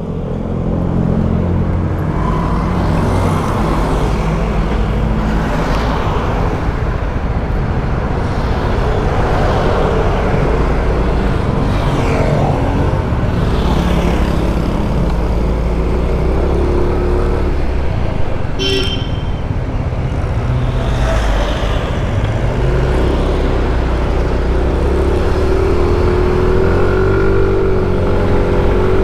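Yamaha Mio i 125 scooter's single-cylinder engine running steadily as the scooter pulls off and rides in traffic, with other vehicles passing. The engine note rises near the end as it picks up speed, and a short sharp sound comes about two-thirds of the way through.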